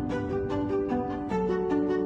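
Background music: a light instrumental track with held melody notes over an even, plucked beat.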